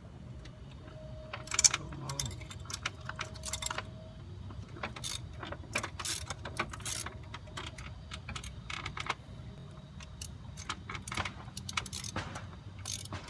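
Metal tools and a socket clinking and clicking irregularly as a thermostat housing bolt is worked into place on a Mustang V6 engine, with one sharper knock about one and a half seconds in.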